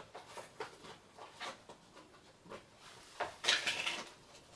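Light handling noises from small parts and tools being picked up and set down: a few soft clicks, and a short rustle about three and a half seconds in.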